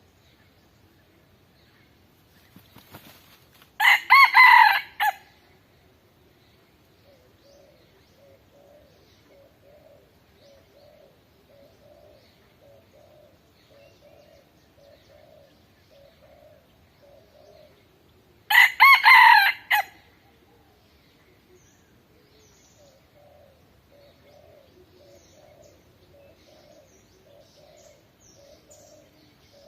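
A rooster crowing twice, about fifteen seconds apart, each crow a loud cock-a-doodle-doo lasting about a second and a half. Faint soft calls repeat steadily in between.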